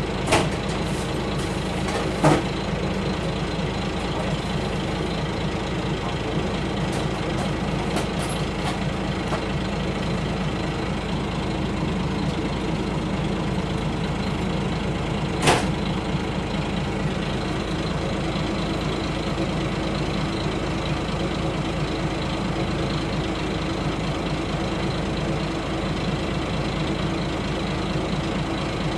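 Kashima Rinkai Railway 6000-series diesel railcar idling while standing at a station, a steady engine hum heard from inside the passenger cabin. Three sharp clicks cut through it, two near the start and one about halfway.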